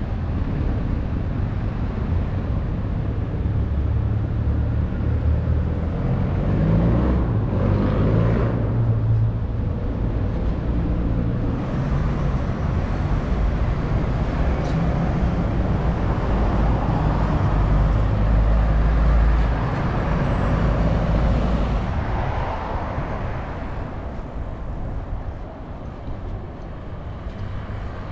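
Road traffic: motor vehicles passing with a steady rumble of engines and tyres, easing off somewhat near the end.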